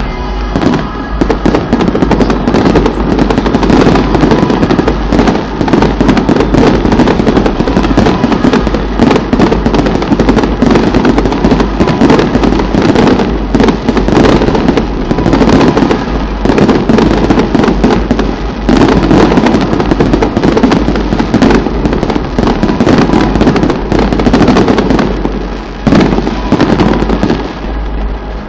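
A dense, continuous barrage of fireworks and firecrackers going off, many loud bangs and crackles overlapping with no break, easing slightly near the end.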